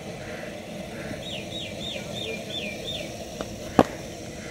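A cricket bat strikes a cricket ball once, a sharp crack near the end, with a fainter tap about half a second before it. Earlier, a bird calls a quick run of six short falling chirps.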